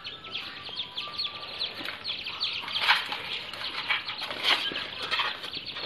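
Wild ducklings peeping rapidly and continuously from a wire cage, with a few louder bouts of wing flapping from the captive adult wild duck.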